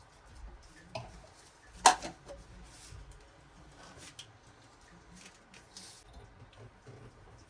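Scattered light clicks and taps from tools and parts being handled, with one sharp knock about two seconds in.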